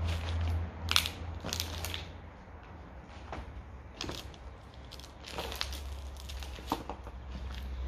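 Footsteps crunching and crackling over cardboard and plastic litter strewn across a floor, in a few irregular bursts, over a low steady rumble.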